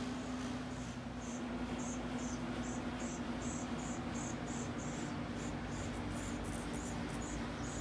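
A steady low machine hum with a series of short, high chirps repeating about two to three times a second over it.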